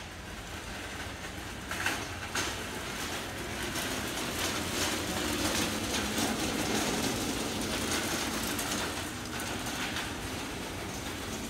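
Steady rumbling background noise, like wheels rolling, with a few short knocks about two seconds in.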